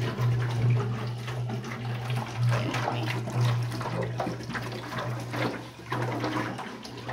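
Water glugging from an upturned water-cooler jug down into an empty jug below, through their necks taped together, in irregular gurgling pulses as air bubbles back up.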